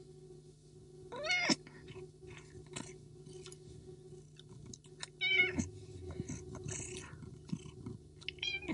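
A cat meowing: three short, wavering meows, about a second in, midway and near the end, over a steady low hum.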